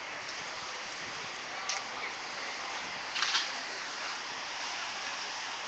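Steady outdoor street noise hissing through a phone microphone, with two short clicks about a second and a half apart.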